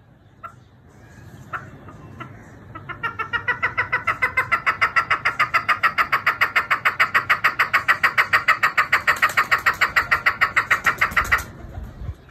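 Chukar partridge calling: a fast, even series of loud chuck notes, about six a second, that builds up about three seconds in and stops abruptly near the end. A few sharp clicks come before it.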